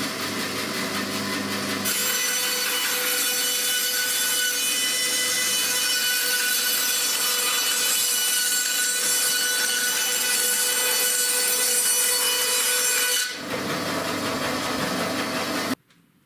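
Bandsaw ripping a long OSB board: the saw runs with a low hum, then the blade bites into the board at about two seconds and cuts loudly and steadily with a whine for about eleven seconds. Near the end it runs free again until the sound cuts off suddenly.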